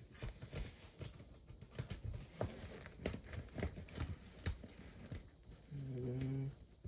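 Irregular small clicks, taps and rustles of a doorknob's internal parts being worked off a taped cardboard door. A short hummed voice sound comes near the end.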